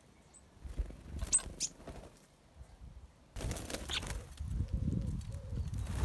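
Starlings flapping their wings as they land on a mesh seed feeder: a loud fluttering that starts about halfway through. Before it come a few light clicks and two short, high chirps.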